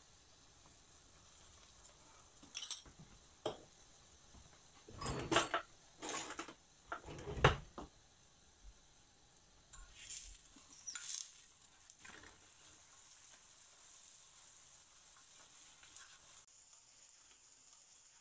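Oil sizzling under a potato paratha frying on a hot tava, with a metal spoon and tongs clinking and scraping against the pan several times in the middle as it is oiled and turned.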